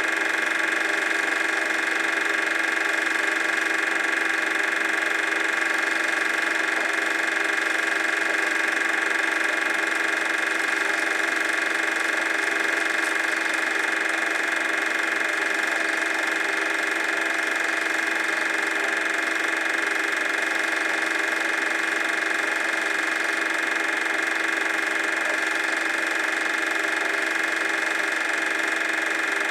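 Super 8 film projector running: a steady mechanical whirr with a constant hum, unchanging throughout.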